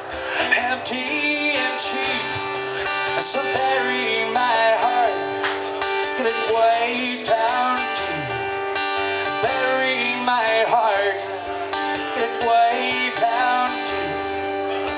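Live acoustic guitar music: two acoustic guitars strummed and picked through an instrumental passage of a country song, with a sung voice heard over it at times.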